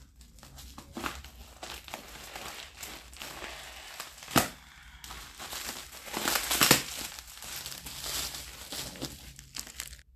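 Plastic bubble-wrap packaging crinkling and rustling as it is cut and torn open with scissors, with a sharp crack about four seconds in and a louder stretch of tearing around six and a half seconds.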